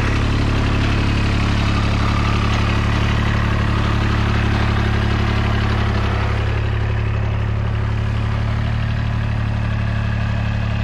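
Kubota ZD1011 zero-turn mower's diesel engine running steadily, a constant low drone.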